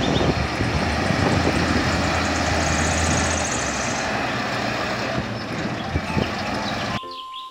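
Tatra eight-wheel dump truck's diesel engine running as the truck drives across a steep concrete slope, with a steady low drone in the first few seconds. The sound cuts off abruptly near the end.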